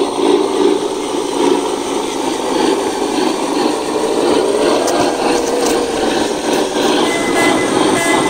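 Small electric motor and gearbox of a handmade RC model truck running under load with a steady rasping whir. The pitch bends briefly about four seconds in.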